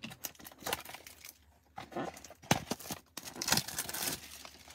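Plastic shrink wrap crinkling and tearing as it is peeled by hand off a cardboard trading-card box, in irregular crackles and rips.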